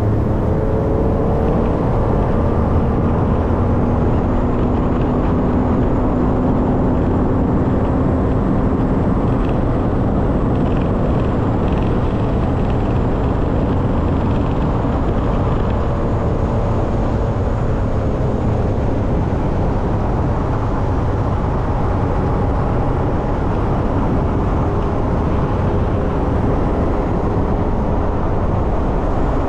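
A boat's outboard motor running steadily at speed, its engine tone held under a dense, even rush of noise.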